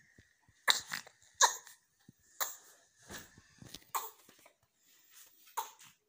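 Newborn baby fussing: a series of short, broken cries, about six, with pauses in between.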